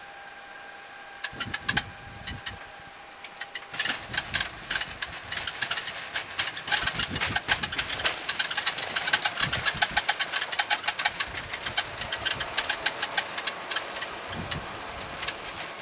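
Rapid, irregular rattling and knocking in the cockpit of an Embraer regional jet rolling out on the runway after touchdown. It begins about a second in and becomes a dense, continuous clatter from about four seconds in. A faint steady hum stops at about the same moment.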